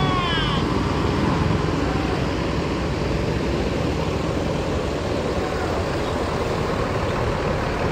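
Mercedes-Benz coach's diesel engine running steadily as the bus pulls away and turns.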